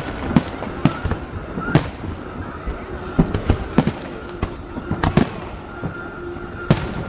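Aerial fireworks bursting in an irregular series of about a dozen sharp bangs, some close together and some ringing out briefly.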